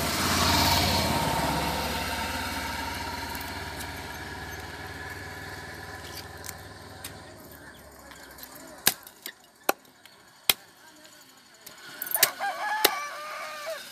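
A motor vehicle passes close by, loudest about half a second in and fading away over the next several seconds. Then a heavy knife chops fish on a wooden log block: about five sharp knocks spread over the last five seconds, with a short pitched call about twelve seconds in.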